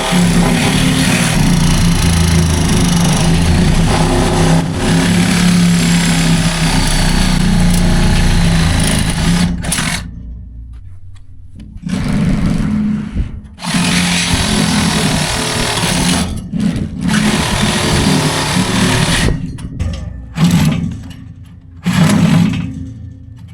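Power tool cutting through steel continuous fence panel: a loud, steady running noise with a low hum, cutting out and starting again several times in the second half.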